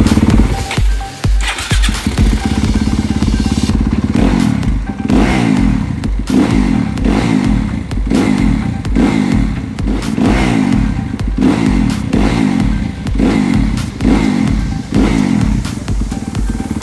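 A 2019 Yamaha YZ250F motocross bike's single-cylinder four-stroke engine running, with background music mixed over it.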